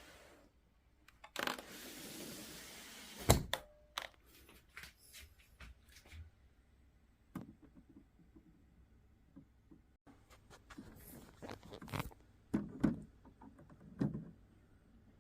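Knocks and clunks of parts being handled while a window air conditioner is fitted. A harsh scraping hiss of about two seconds ends in the loudest knock, and a quick run of knocks comes near the end.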